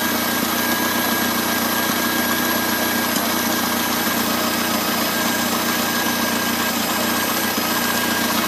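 1951 Farmall Cub's four-cylinder flathead engine idling steadily.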